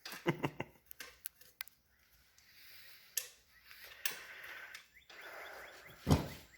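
Scattered clicks and clinks of metal wheel parts and tools being handled while the rim goes back on an ATV's rear hub, a quick run of them at the start, then softer scraping and rustling, and one heavier knock near the end.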